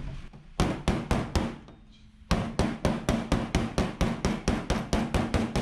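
An old file, used as a body slapper, striking a Ford Sierra Sapphire's bonnet panel to flatten high spots. There are four slaps, a short pause, then a quick, even run of about five slaps a second.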